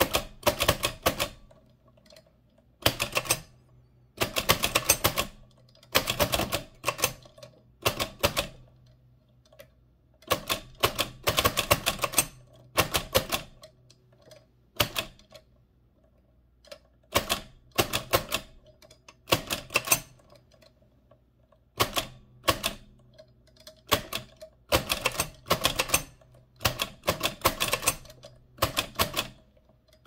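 1925 AEG Mignon 4 index typewriter being typed on: quick runs of sharp mechanical clacks as its keys are pressed and the type cylinder strikes the paper, coming in irregular clusters with short pauses between.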